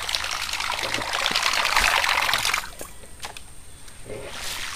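Water trickling and splashing, loudest in the first half and dropping away suddenly about two and a half seconds in.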